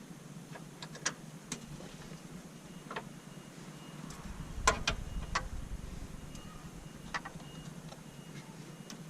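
Scattered light clicks and knocks of metal parts and hand tools being handled while fitting the radiator's upper mounting brackets, with a cluster of sharper knocks and a dull thud about halfway through, over a low steady hum.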